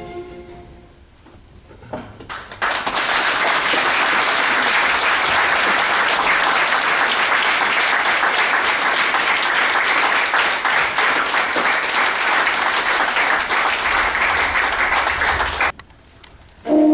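Audience applause: a few scattered claps, then steady, dense clapping that breaks off suddenly near the end.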